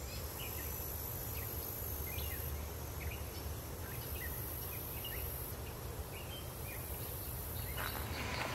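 Outdoor ambience: small birds chirping now and then over a steady low rumble, with a faint high hiss that breaks off briefly a few times.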